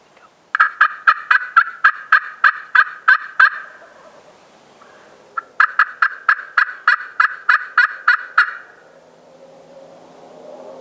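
Turkey yelps in two runs of about a dozen evenly spaced, sharp notes each, roughly four a second, with a pause of about two seconds between the runs.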